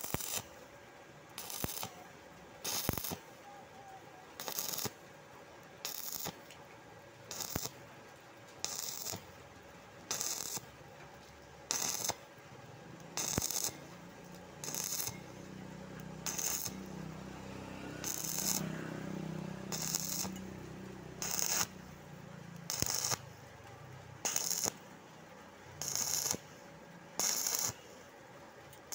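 Stick-welding arc struck in short bursts, crackling for a fraction of a second about every one and a half seconds, about twenty times in a row: the arc is broken and restruck again and again to build weld across a very large gap.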